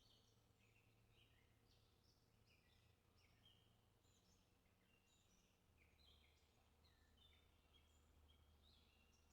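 Near silence, with faint high chirping notes throughout, like distant birdsong, over a low steady hum.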